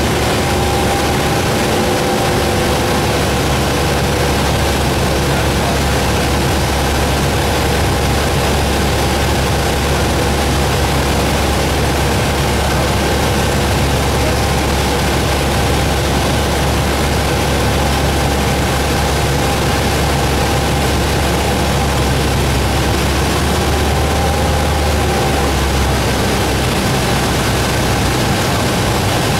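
Light airplane's engine and propeller running steadily in cruise, heard inside the cabin as a constant drone with airflow hiss.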